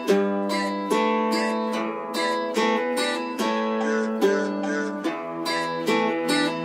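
Background music: a guitar strumming and picking chords, each struck a little more than once a second and left to ring.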